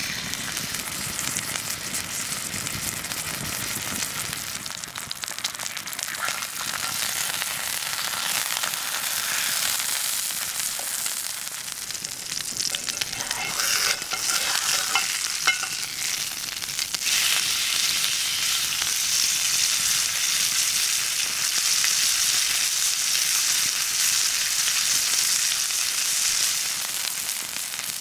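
Raw ribeye steak sizzling steadily as it sears in hot fat in an iron pan over an open wood fire. About halfway through it is turned, and after that the sizzle is louder and higher.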